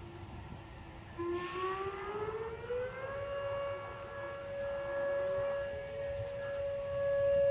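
Outdoor tornado warning sirens on their test: one siren sounds faintly, then about a second in a nearer one starts and winds up in pitch over about two seconds. It then holds a steady wail that grows louder toward the end.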